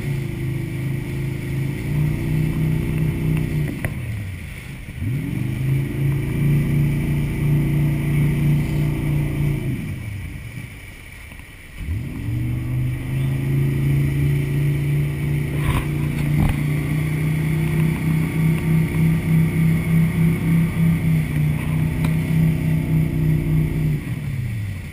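Speedboat engine towing a rubber ring at speed. It is throttled back twice, its pitch falling away, about four and about ten seconds in, and opened up again each time with a rising pitch. It eases off once more near the end.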